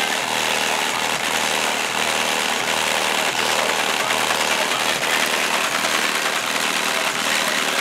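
Two 18-inch DSS Ethos subwoofers on a Taramps 15k amplifier playing bass at very high level, heard as a loud, steady, harsh rattling buzz of the car's body and windshield cowl shaking, with the deep notes themselves barely coming through.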